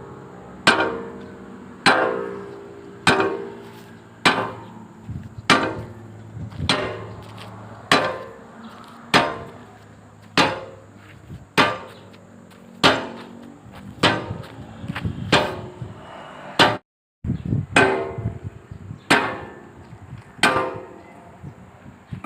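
Hammer blows on steel, driving a pin into an excavator bucket's linkage: steady, evenly spaced strikes about one every second and a quarter, each ringing briefly. After a short break near the end come lighter, quicker taps and a few more full blows.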